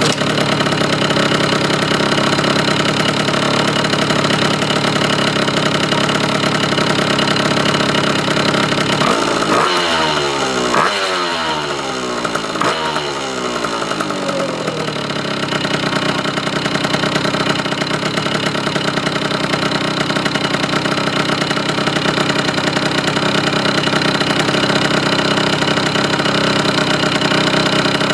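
Yamaha BW's 50 scooter's 50cc two-stroke engine, a hybrid of 3KJ and TA01E parts with aftermarket tuning parts, catching and then running steadily. About nine seconds in it is revved up and down several times, then settles back to steady running.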